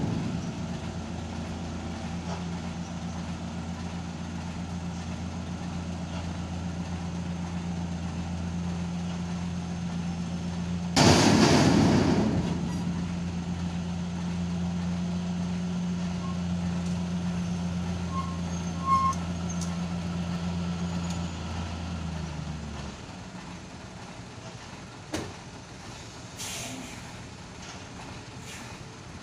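Large diesel cargo truck's engine running at a low, steady drone as the truck edges slowly round a tight hairpin bend, with a loud hiss of air brakes lasting about a second, some eleven seconds in. About three-quarters of the way through, the engine drone drops away and only quieter road noise and a few small clicks remain.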